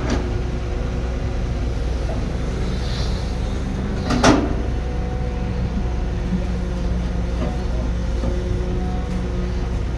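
Heavy construction machinery running steadily with a low engine rumble, and one loud metallic clank about four seconds in.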